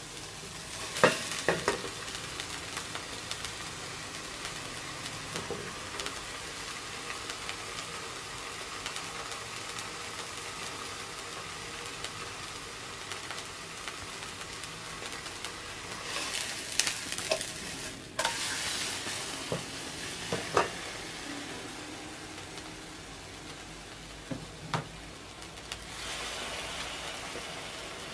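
A pangasius fillet and sliced onion sizzling steadily in oil in a nonstick frying pan. A few sharp clicks and pops come about a second in, a few times after the middle and again near the end.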